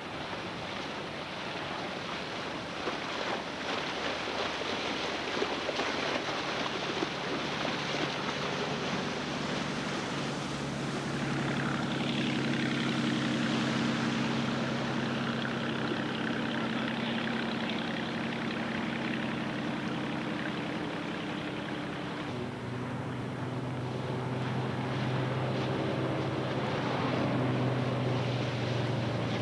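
Inboard engine of a vintage mahogany runabout running at speed over rushing water and spray. A steady engine drone comes up about a third of the way in, then shifts to a deeper, stronger note about two-thirds through.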